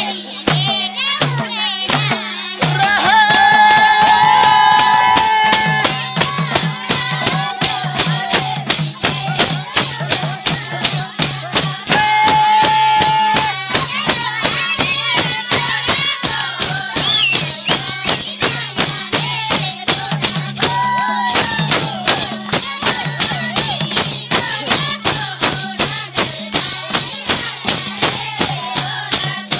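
Nepali folk song in thumke bhaka style: a singing voice with held, wavering notes over a fast, steady percussion beat that runs without a break.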